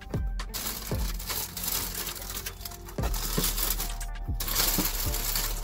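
Thin plastic carry-out bag crinkling and rustling as it is handled, with a few sharp clicks mixed in. The rustle pauses briefly near the end.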